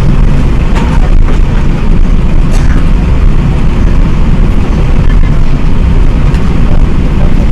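Steady low rumble of an Airbus A380 heard from inside the passenger cabin as the plane rolls along the ground, with a few light ticks or rattles.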